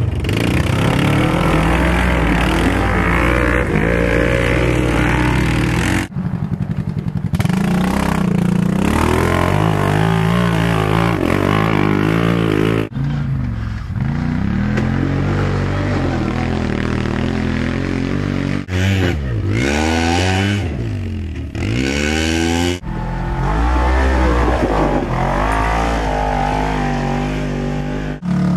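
Side-by-side UTV engines revving in repeated surges as they crawl up a rocky ledge, the pitch rising and falling with the throttle. The sound breaks off abruptly several times and picks up again.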